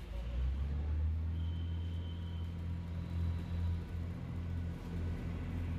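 A large diesel engine idling: a low, steady hum.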